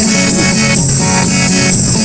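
A live band playing a pop song between sung lines: sustained chords and a bass line under a steady, high rattling rhythm.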